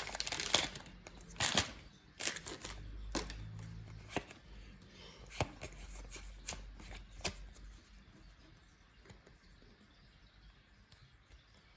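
Pokémon trading cards being handled out of a freshly opened booster pack: quick papery flicks, snaps and rustles as the cards slide over each other, thinning out and growing fainter over the last few seconds.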